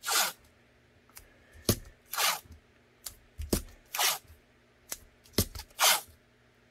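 Blue painter's tape ripped off the roll in four short rips about two seconds apart, with a sharp click between each pair.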